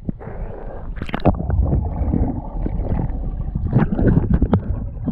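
Water splashing and sloshing close to the microphone in irregular strokes as someone swims or wades through a canyon pool, over a steady low rumble on the microphone.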